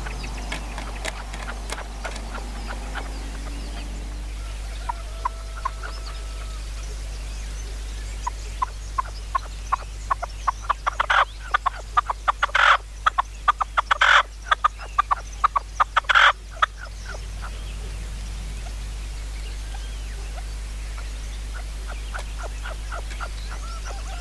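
Red-legged partridges calling: a run of sharp clucking notes about a third of the way in that quickens and grows louder, with several loud harsh calls in the middle, then stops.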